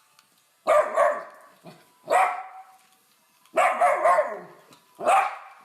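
A dog barking, about six loud barks in irregular clusters with short pauses between them.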